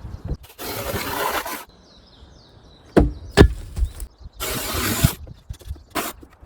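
Demolition work on an old wooden deck: two scraping, sliding sounds about a second long and several sharp knocks of wood, a pair of them about halfway through.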